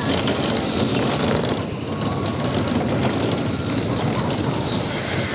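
Slinky Dog Dash roller coaster train running along its track: steady rumble and rattle of the wheels with clicks, mixed with wind rushing past the microphone.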